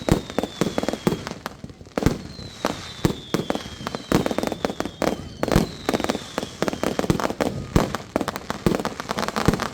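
Fireworks going off in quick succession: a dense run of sharp bangs and crackles, with four thin whistles that each fall slightly in pitch over about a second and a half.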